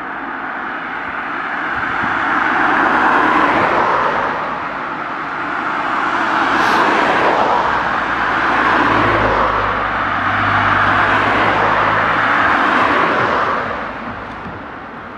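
Cars passing close by on a road, one after another, their tyre and road noise swelling and fading. The later passes run longest, with a low engine hum under them, and the traffic noise falls away near the end.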